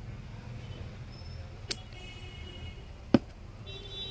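Brass quick-release coupler being unlatched and pulled off a pressure-washer foam cannon's inlet by hand: handling noise with a light click a little under two seconds in and a sharp metal click about three seconds in.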